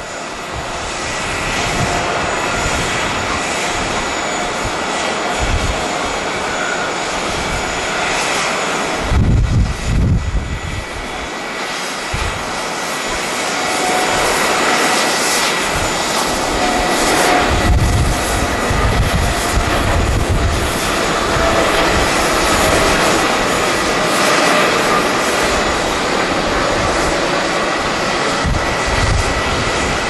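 Japan Airlines Boeing 787 taking off: its jet engines rise to takeoff thrust about a second in, then keep up a loud, steady rushing noise through the takeoff roll and climb-out. Gusts of wind buffet the microphone now and then.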